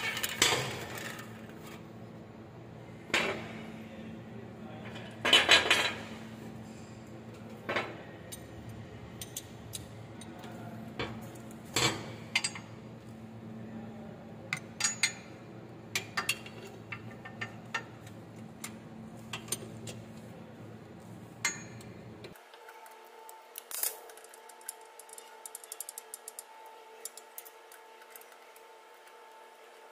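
Scattered metallic clinks and knocks of tools against a machine's steel frame and bearing mount as a worn bearing is unbolted, over a steady low hum that stops abruptly about three-quarters of the way through.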